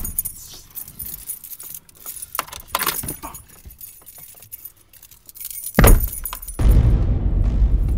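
Car keys jangling and clicking as they are fumbled at the ignition, then the engine cranks and starts about six seconds in and settles into a steady low running rumble.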